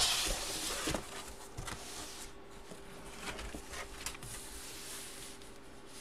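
Plastic sleeves and paper rustling and sliding as large sleeved photos are handled on a table. It is loudest in the first second, then quieter scraps of rustle and soft taps follow.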